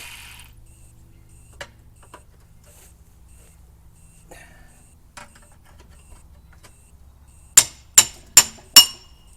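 A few light taps, then four quick ringing hammer blows on steel, about 0.4 s apart near the end: knocking the rusted old sheet metal off a salvaged Willys windshield hinge.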